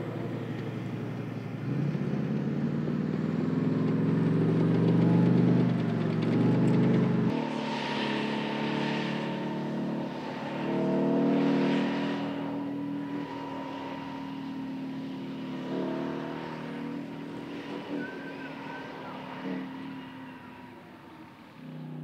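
Type 90 tank driving on a dirt course. Its engine runs with a pitch that rises a few seconds in, then a steady high whine joins about seven seconds in. The sound fades toward the end as the tank moves away.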